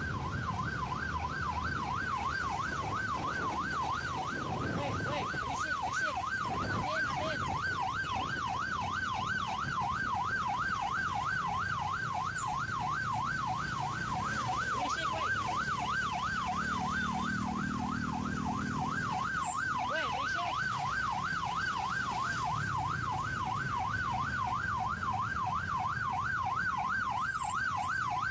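Vehicle-mounted electronic siren in a fast yelp, its pitch sweeping up and down about three times a second without a break, over a low vehicle rumble.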